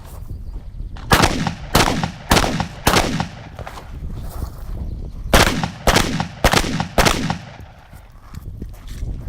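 Shotgun firing slugs in two quick strings of four shots each, about 0.6 s apart, with a pause of about two and a half seconds between the strings.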